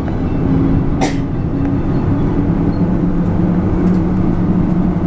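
Bus engine and road noise heard from inside the passenger cabin while driving: a steady low drone, with one short sharp noise about a second in.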